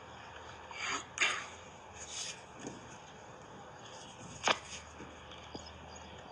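Scattered scuffs and knocks, with one sharp click about four and a half seconds in, the loudest sound.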